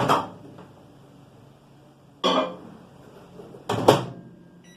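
Microwave oven running with a low hum, cut by three loud sudden cracks from high-voltage arcing between the magnetron's antenna dome and the waveguide/mesh seal. The first comes at the start, the second a little over two seconds in, the third near four seconds. The arcing is the fault, and it damages the antenna dome.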